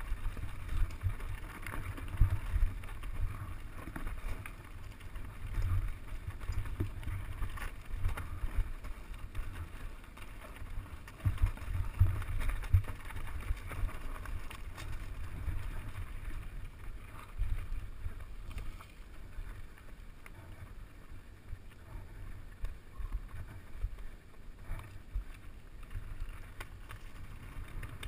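Mountain bike ridden fast down a dusty, rocky singletrack, heard from a camera on the handlebars: wind rumble on the microphone, with tyre noise on dirt and stones and the bike rattling and knocking over the rough ground.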